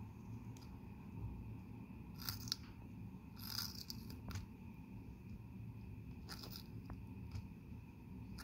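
A young wood turtle biting into a bok choy leaf: a few short, faint crunches at irregular intervals, the clearest two to four seconds in and again after six seconds, over a faint steady hum.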